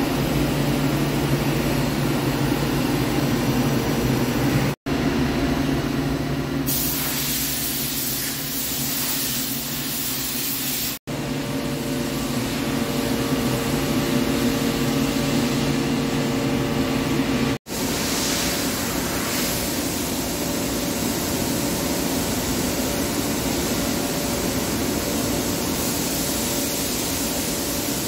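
Hankook CNC lathe and shop machinery running: a steady hum with a few held tones and a hiss on top. The sound drops out suddenly three times and comes back slightly changed, the hiss stronger in some stretches than others.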